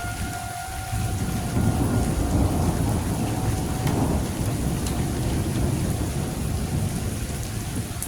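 Tornado warning siren holding one steady wailing tone that fades out about a second in and comes back only faintly. A loud, rough, low rumbling storm noise takes over from there.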